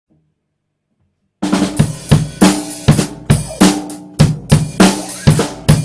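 Near silence for about a second and a half, then a rock band comes in with a steady drum-kit beat, bass drum and snare hitting about two and a half times a second under low pitched bass and guitar notes.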